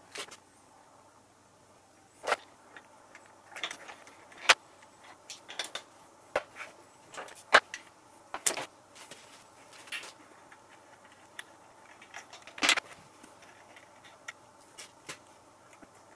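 Irregular metallic clicks, clinks and light knocks from handguard mounting hardware, a clamp and bolt, being handled and fitted to a motorcycle handlebar, with a few louder knocks.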